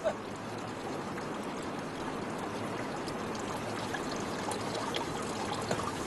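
Water trickling steadily.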